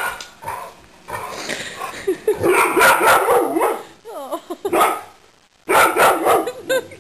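Dog barking in loud bursts, with a run of short high whines between them about four seconds in.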